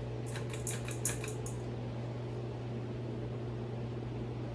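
SMC DC42 42-inch flush-mount ceiling fan running steadily on high speed, a low motor hum with the rush of moving air. About half a second in, a brief run of light clicks lasts roughly a second.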